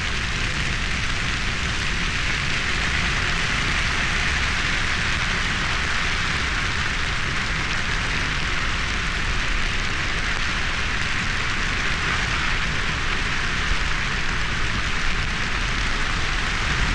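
Dry grass burning in a hillside grass fire: a dense, steady crackle like heavy rain, over a low rumble.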